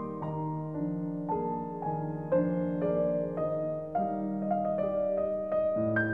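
Solo piano playing a slow classical piece, melody notes struck about twice a second over held bass notes.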